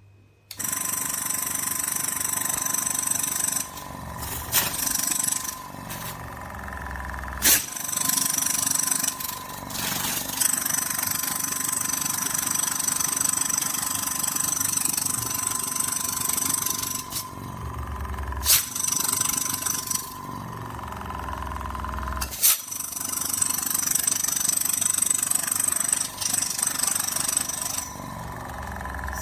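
Fengda FD18-2 mini airbrush compressor running steadily with a high-pitched whine and air hiss, with several sharp clicks along the way.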